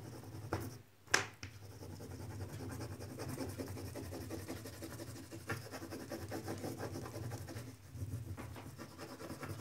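Oil pastel crayon scratching back and forth on a paper drawing sheet in quick, steady colouring strokes, with a sharp tap about a second in.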